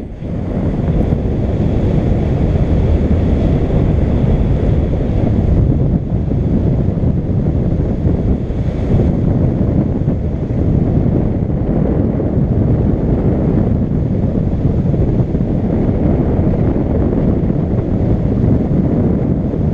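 Wind rushing and buffeting over the action camera's microphone in flight, a loud, steady, low rumbling noise with no clear engine note.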